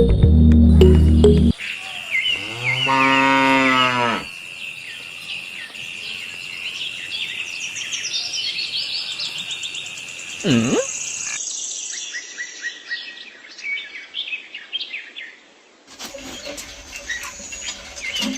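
A cow moos once, a long call that rises and falls, just after music cuts off. Birds chirp repeatedly afterwards.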